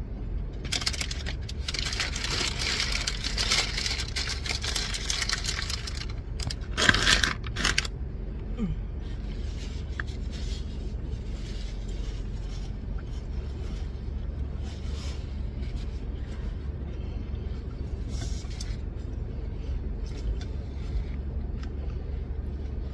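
Paper sandwich wrapper crinkling and rustling as it is handled, in a long stretch over the first six seconds and again, loudest, about seven seconds in, over a steady low hum inside a car. After that only the hum and faint small handling noises remain.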